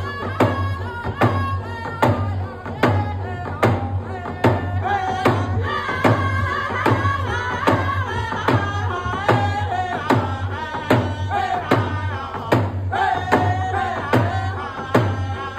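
First Nations hand drum song: three male voices singing together while beating single-headed frame hand drums in a steady beat of about two strikes a second.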